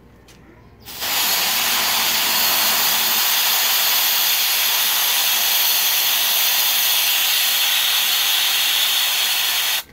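Butane gas canister discharging through its nozzle in one long steady hiss, starting about a second in and cutting off suddenly near the end.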